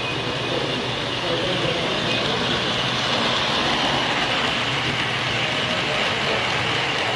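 Three-rail O-gauge model train, a diesel locomotive pulling freight cars, running past close by: a steady rolling rumble of wheels on the track that grows a little louder in the middle as it goes by, over murmured voices.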